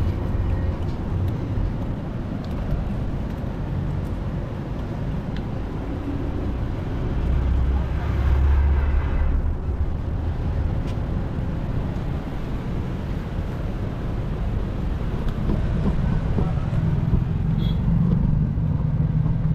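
Steady rush of floodwater pouring through a dam, with motor vehicles going by on the bridge; a deep engine rumble swells about eight seconds in and another passes near the end.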